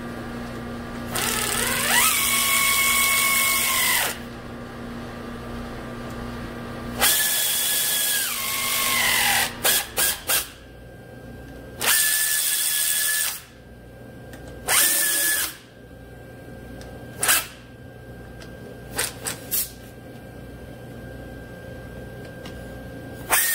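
Pneumatic air ratchet running in the bolts of the front axle's intermediate-shaft housing in a series of bursts: two longer runs of about three seconds, then shorter and shorter blips as the bolts seat. Each burst spins up in pitch, and the whine sags as the bolt snugs tight.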